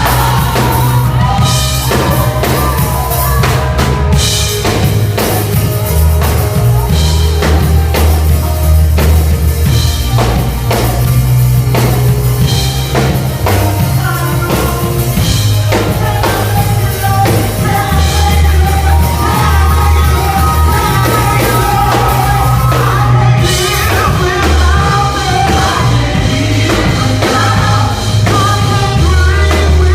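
Live band playing an upbeat gospel song: a drum kit beating steadily under a deep, moving bass line, with singing voices over the top.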